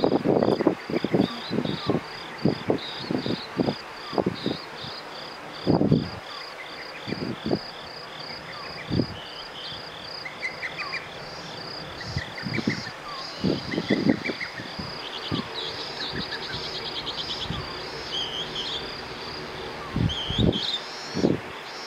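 Night insects chirping in a steady, even pulse of about two or three high chirps a second, over the steady hiss of an electric fan. Irregular soft low thumps and rustles come and go, the loudest near the start and again toward the end.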